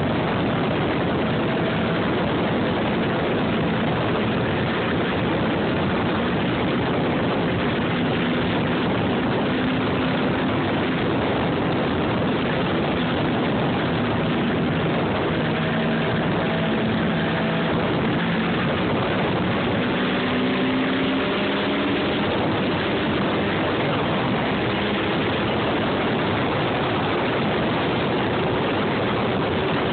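Polaris snowmobile engine running steadily while riding along a snowy trail, its note shifting slightly in pitch over a dense rush of noise.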